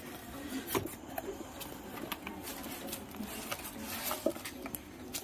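Cardboard box flaps being opened and rubbed by hand, with scattered clicks and rustles as a plastic-wrapped part is handled inside the box.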